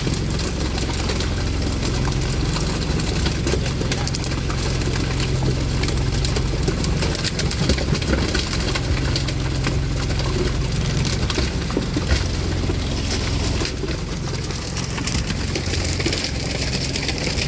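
An engine aboard a net-fishing boat running steadily at low revs, a constant low hum under a wash of noise.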